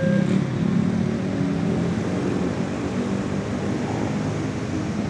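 Electric commuter multiple-unit train running away along the tracks, a steady low rumble that slowly fades as it recedes.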